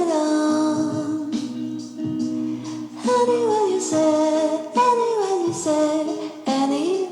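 Background music: a woman singing a gliding melody over held notes.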